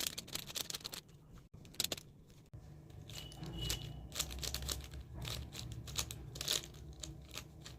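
A plastic 5x5 Rubik's cube having its layers turned in quick succession, a run of rapid clicks and scraping rattles, as the last stage of the solve is worked through after a parity error.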